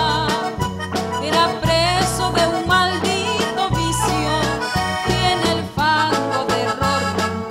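Instrumental passage of a Catholic song: a melody line over a regular bass beat.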